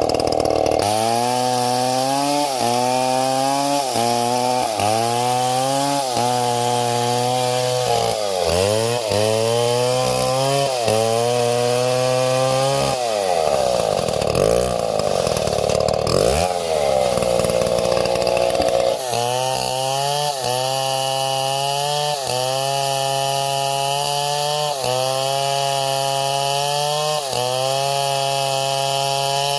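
Two-stroke chainsaw running hard in a cut through wood, its engine pitch dipping and recovering about once a second as the chain bites. Midway it revs freely up and down for a few seconds before settling back into the rhythmic cutting.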